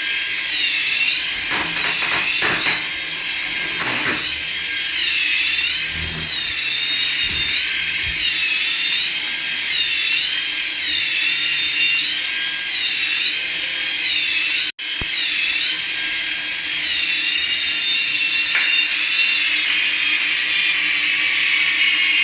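A remote-control toy's high-pitched whine, rising and falling in pitch over and over. It drops out briefly partway through and cuts off suddenly at the end.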